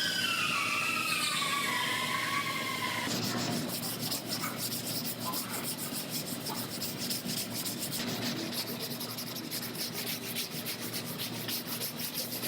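A power tool's whine falling in pitch as it spins down over the first three seconds, then quick, steady back-and-forth strokes of hand sanding on a car body panel during bodywork.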